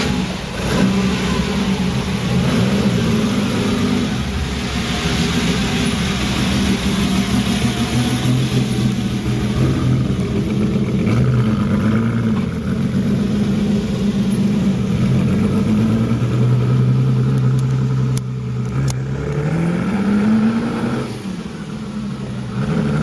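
Ferrari 250 GTO's V12 engine running at low speed as the car pulls away and drives off, the revs rising and falling, with one clear rise in revs about three-quarters of the way through.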